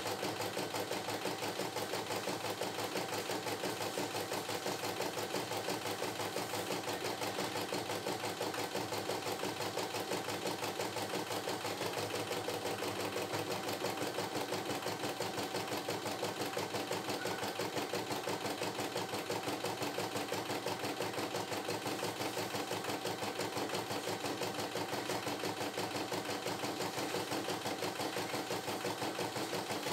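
CNY E960 computerised embroidery machine stitching a design, its needle going up and down in a rapid, steady rhythm while the embroidery arm moves the hoop.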